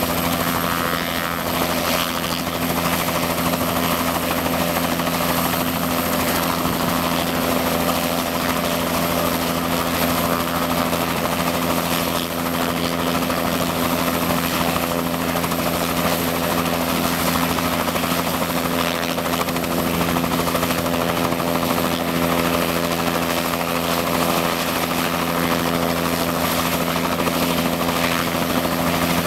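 Medical helicopter running on the ground with its main and tail rotors turning: a steady, unchanging drone of engine and blades.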